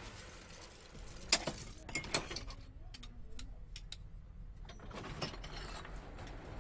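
Irregular sharp metal clinks and taps from blacksmith's tools, with fainter ticks in between. The loudest strike comes about a second and a half in, and another group of clinks comes about five seconds in.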